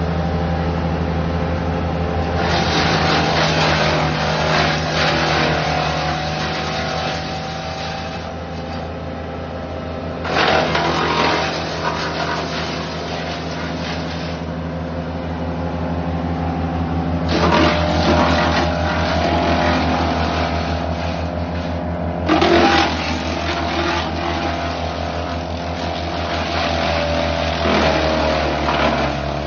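Wood chipper running steadily at working speed while branches are fed through it: four or five loud spells of chipping noise, each a few seconds long, rise over the constant engine note and die away between feeds.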